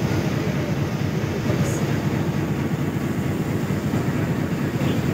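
Steady low rumble of an engine-driven vehicle under way, with no breaks.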